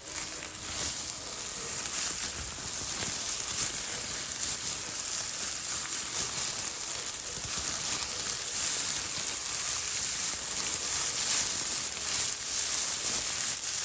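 A plastic bag crumpled and rustled between the hands in a steady, dense crackling hiss, a home-made imitation of falling rain.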